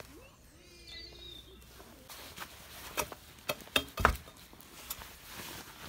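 A few sharp knocks and clicks, with a heavy thud about four seconds in, from wood and tools being handled: a wooden post and a spade in dug soil.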